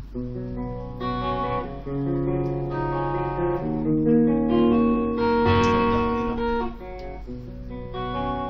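Electric guitar played with a clean tone, picking a melodic run of single notes and chord shapes that ring into each other. The playing swells to its loudest in the middle and eases off briefly near the end. A steady low hum runs underneath.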